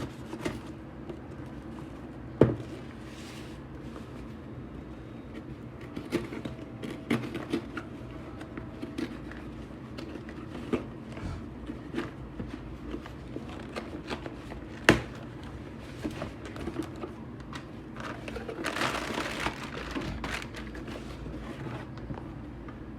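Headset packaging being handled and opened: scattered clicks and knocks of cardboard and plastic, one sharp knock a couple of seconds in and another past the middle, and a stretch of crinkling plastic near the end, over a steady low hum.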